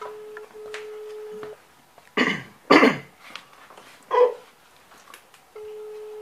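Phone ringback tone from an outgoing mobile call, a steady single-pitch ring for about a second and a half at the start and again near the end, meaning the call is ringing and not yet answered. Between the two rings come a few loud, short coughs or throat-clearings.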